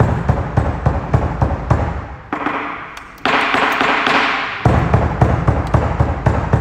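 Percussion accompaniment for dance practice: rapid, loud drum beats, broken about three seconds in by a crash that rings and fades for over a second before the beats resume.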